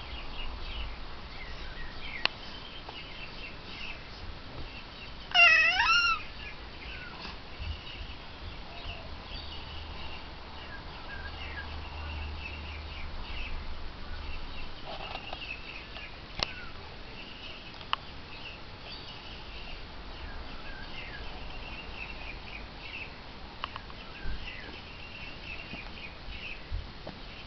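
A baby gives one short, loud cry about five seconds in, its pitch falling and then rising. Faint high squeaks or chirps and a few small clicks come and go around it.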